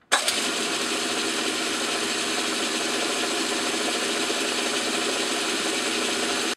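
Small metal lathe running at speed, its motor and gearing giving a steady whir with several steady tones, as it spins an aluminium workpiece coated in cutting fluid. The sound starts suddenly just after the beginning.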